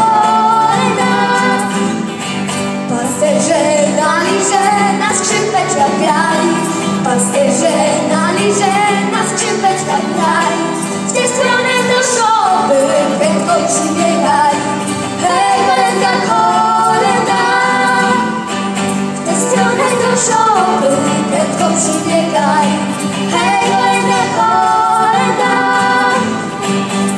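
Live band playing a Polish Christmas carol: electric guitar and keyboards under a bending lead melody, with female singing.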